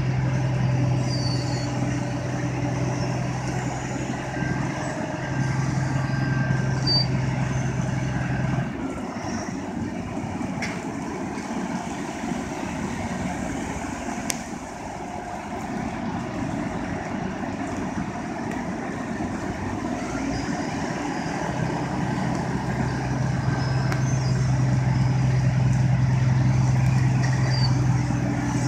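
Diesel engine of a road milling machine running steadily as the machine creeps on its tracks onto a lowboy trailer. Its droning hum drops away about nine seconds in and comes back strongly about three quarters of the way through.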